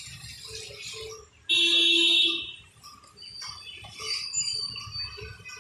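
Water pouring from a jug into a bowl of flour and hands mixing it into batter. About a second and a half in, a loud, steady horn-like tone cuts in for under a second.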